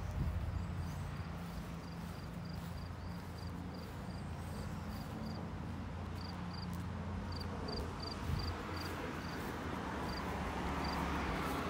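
Outdoor ambience: a run of short, high chirps, about two to three a second with a few pauses, over a steady low rumble.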